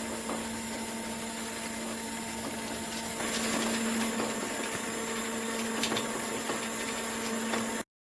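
Concrete 3D printer running: a steady machine hum with a noisy rattle over it and a few light clicks. It gets somewhat louder about three seconds in, then cuts off abruptly near the end.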